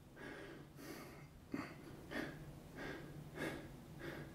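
A man breathing hard through short, faint, quick breaths, about six puffs spaced a little over half a second apart, from the exertion of prone back-extension reps.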